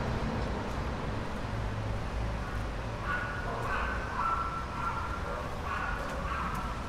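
City street traffic: a steady low rumble of passing vehicles, with faint higher sounds joining from about halfway through.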